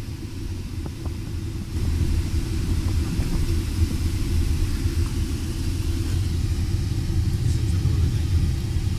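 Steady low rumble of a car in motion, heard from inside the cabin, growing louder about two seconds in.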